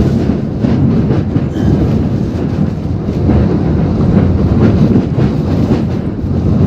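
Typhoon winds and driving rain buffeting the microphone: a loud, steady low rumble.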